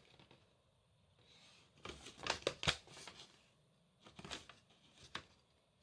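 Paper rustling as pages of a paper instruction booklet are handled and turned, in two short bouts about two seconds in and again about four seconds in.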